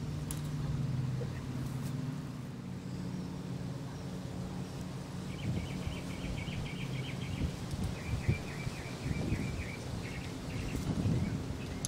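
Outdoor ambience: a low steady motor hum at first, then a small bird's rapid trill, twice, about halfway through, over light rustling.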